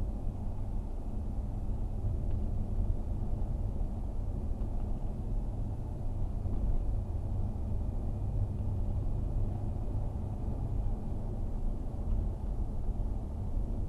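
Car driving steadily at road speed, heard from inside the cabin: a continuous low rumble of engine and tyres on the road surface.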